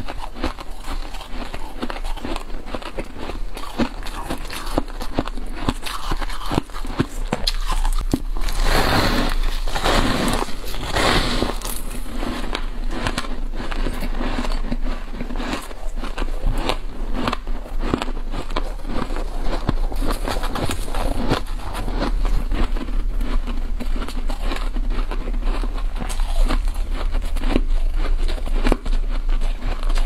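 Fluffy freezer frost crunching and crackling as it is squeezed and broken apart in plastic-gloved hands, close to the microphone: a steady run of crisp little clicks, thicker and louder for a few seconds near a third of the way in.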